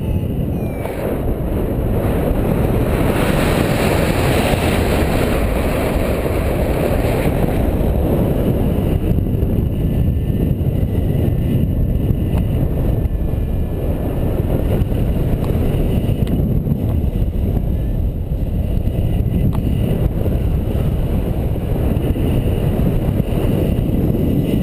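Airflow rushing over the camera microphone of a paraglider in flight: a steady low rush, brighter and stronger for about four seconds starting around three seconds in.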